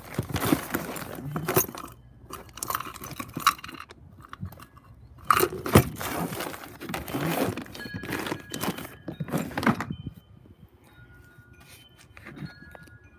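Hands rummaging through a plastic storage tub of plastic-bagged items and cords: plastic crinkling and rustling, with knocks and clinks. It stops about ten seconds in.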